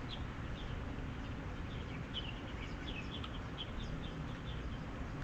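Small birds chirping in many short, high notes over a steady low background noise.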